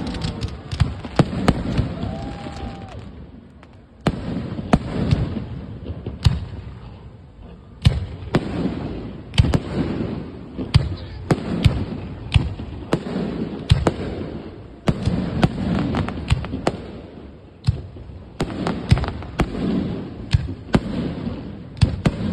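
Fireworks display: aerial shells bursting one after another, sharp bangs about every second with rumbling echoes after each, and a brief lull about four seconds in.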